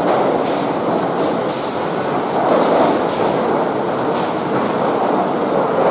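Lumber stacker machinery running: chain conveyors and transfer decks carrying 2-inch boards, with a steady loud rattle and sharp clacks every second or so.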